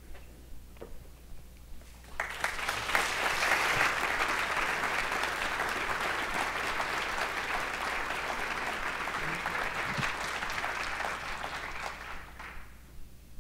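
Audience applauding. The clapping starts abruptly about two seconds in, holds steady, and dies away near the end.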